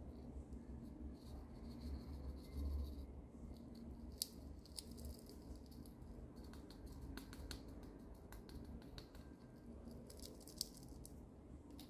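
Faint sticky crackles and clicks as fingers pull and stretch a small piece of clear glitter slime, in scattered clusters.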